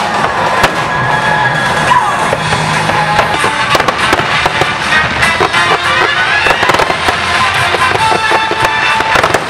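Aerial firework shells bursting in rapid, overlapping succession, many bangs and crackles a second, over music playing throughout.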